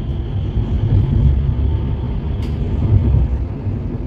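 Light-rail car running, heard from inside the passenger cabin: a steady low rumble as it pulls away from the stop and gathers speed, with one brief sharp click about two and a half seconds in.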